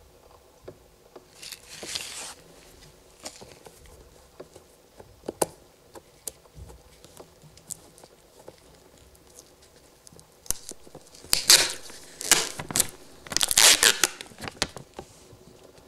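Peel-off booklet label on a plastic engine oil bottle being lifted and unfolded by gloved fingers: paper crinkling and peeling, a short burst about two seconds in and a longer run of bursts in the last five seconds, with small taps and clicks between.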